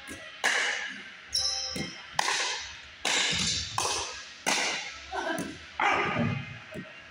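Pickleball paddles striking the ball in a fast rally, a quick string of sharp hits about one a second, each echoing in the gym. A brief shoe squeak on the hardwood floor comes about a second and a half in.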